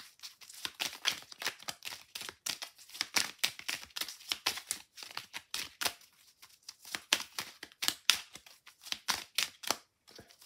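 A deck of oracle cards being shuffled by hand: a dense, irregular run of crisp card flicks and riffles, several a second, broken by short pauses.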